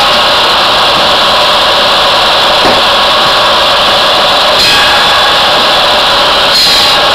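Posch circular sawbench running continuously and loudly, its blade spinning as wood is fed to it, with two short harsher bursts about four and a half and six and a half seconds in as the blade cuts.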